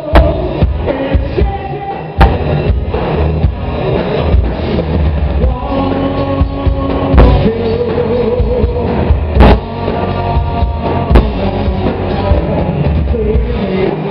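Live rock band playing loud: electric guitars, bass guitar and drum kit, with a man singing lead and sharp drum hits every few seconds.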